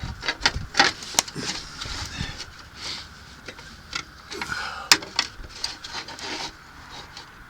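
Hand work with tools and metal parts: irregular clicks, taps and rattles, with one sharp click about five seconds in.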